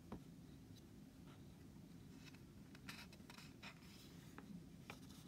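Faint rustling and soft ticks of a paper page being turned in a small hardback book, with fingertips brushing the paper, most of it from about two seconds in.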